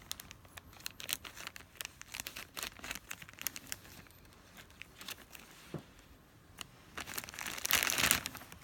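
Thin plastic toy bag crinkling as it is torn open and handled. Sharp crackles run throughout, with a louder spell of crinkling near the end.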